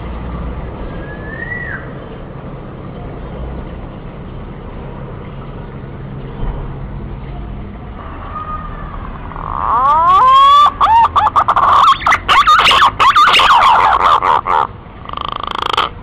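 Male green pigeon (punai) calling, a loud run of wavering, gliding whistles crackling with distortion from about the middle, preceded by a faint rising whistle about a second in. A short loud call follows near the end, over a steady background hiss.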